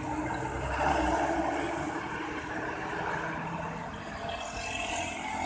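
Roadside traffic noise: a passing vehicle's engine and tyre sound, loudest about a second in, then easing to a steady background rumble.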